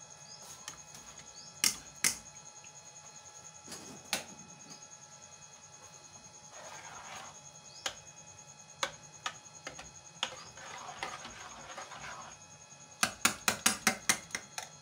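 A utensil knocking and scraping against a dish as boiled vermicelli are put into it: scattered sharp knocks, scraping in between, and a quick run of taps near the end.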